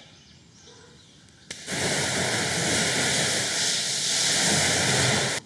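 A garden-hose spray nozzle jets water into an emptied plastic rainwater tank, hitting the inside wall to wash out sediment. The spray starts with a click about a second and a half in, runs as a steady loud hiss and splash, and cuts off suddenly.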